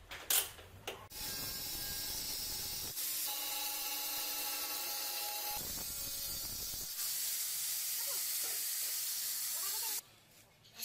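A few sharp knocks, then an angle grinder with a cutting disc grinding through a glossy black ceramic floor tile: a steady hissing grind with a motor whine in the middle, stopping abruptly about ten seconds in.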